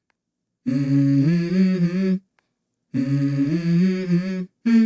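Repeated bleating calls, each about a second and a half long, stepping up in pitch partway through. There are two full calls and a short clipped one near the end, with abrupt silences between them.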